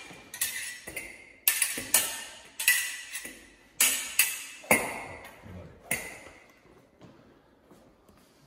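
Two fencing foils clashing blade on blade: about a dozen sharp metallic clinks, each with a brief ring, coming in quick groups and stopping about six seconds in.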